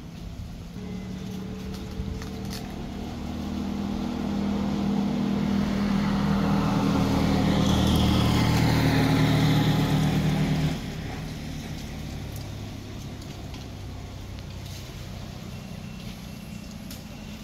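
A motor vehicle engine running at a steady pitch, growing louder over several seconds, then cutting off suddenly about eleven seconds in, leaving a fainter steady background.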